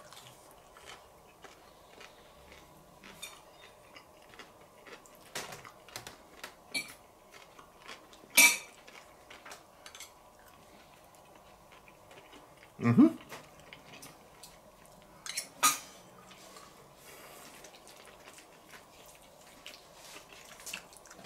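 Metal fork clinking and scraping on a ceramic plate while eating, a scatter of light clicks with a few sharper clinks. One short, lower sound about halfway through.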